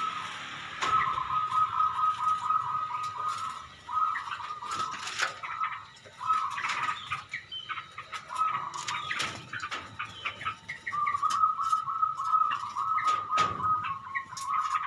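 Aviary birds calling in repeated chattering phrases of a few seconds each, all at one steady pitch, with short gaps between them. Scattered soft knocks sound between the calls.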